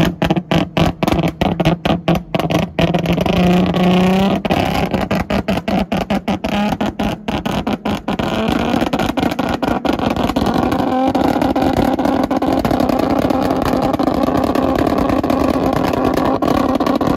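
Nissan 350Z's V6 held at high revs on a two-step launch limiter, its exhaust crackling and banging rapidly as it shoots flames. The held pitch steps up about four seconds in, and in the second half the bangs thin out into a steadier drone.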